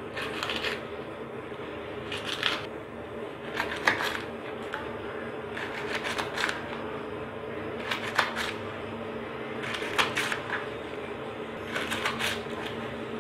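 Kitchen knife slicing okra into rounds on a wooden cutting board: quick runs of light taps on the board every two seconds or so, over a faint steady hum.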